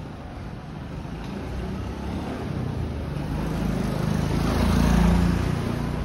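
A motor vehicle passing close by on the street, its engine and road noise growing louder to a peak about five seconds in, then starting to fade.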